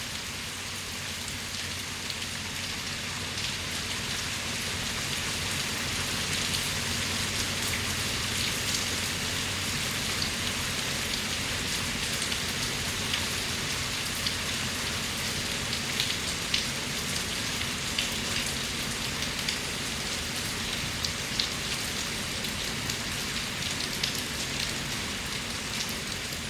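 Heavy rain pouring down steadily: a dense hiss scattered with sharp drop ticks, growing a little heavier over the first several seconds.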